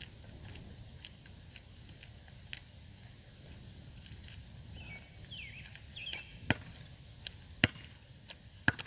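A basketball bounced hard on an asphalt court three times, about a second apart, near the end, with fainter taps earlier and a few bird chirps in the middle.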